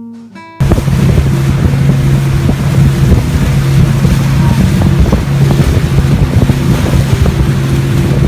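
Acoustic guitar music cuts off about half a second in, giving way to a boat motor running steadily, with wind noise buffeting the microphone.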